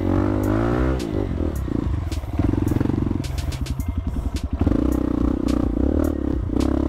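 Honda CRF150L single-cylinder four-stroke dirt bike engine revving hard and unevenly, dropping to a slow chugging for about a second midway before revving high again, while the rear tyre fights for grip on slick clay. Scattered sharp clicks sound throughout.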